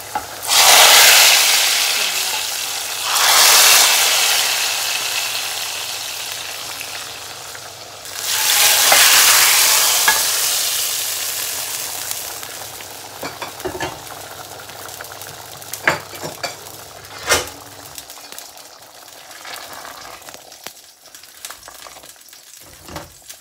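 Hot tadka of garlic, chilies and cumin fried in oil poured into cooked black lentil dal, a loud sizzle flaring up three times, about half a second, three seconds and eight seconds in, each hiss dying away over several seconds. Later the sizzle settles to a low hiss with a few light knocks.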